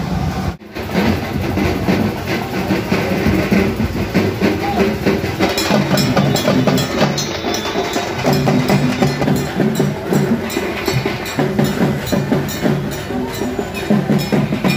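Loud procession music with heavy, rhythmic drumming. The sound drops out briefly about half a second in, and the drum strokes come thick and fast from about five seconds in.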